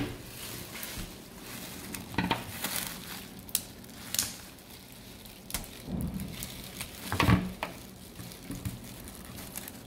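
Plastic shrink-wrap on a canvas board crinkling and crackling as it is cut with scissors and picked at by fingers, in scattered sharp crackles.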